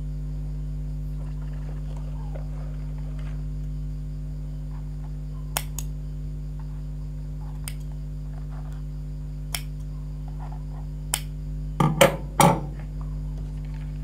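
Steady electrical hum under a few sharp clicks of scissors snipping at a braided ribbon edging, then two louder knocks near the end as the scissors are handled.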